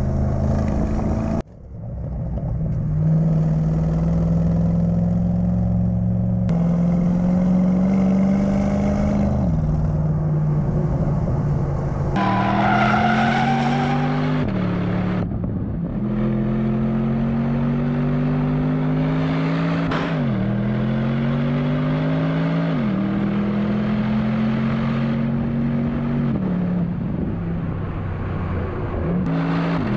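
Porsche Panamera engine accelerating hard under load, its pitch climbing through each gear and dropping sharply at every upshift, several times over.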